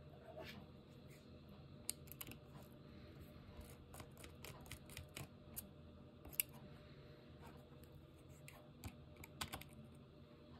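Faint, irregular clicks of computer keys being typed, over a low steady hum.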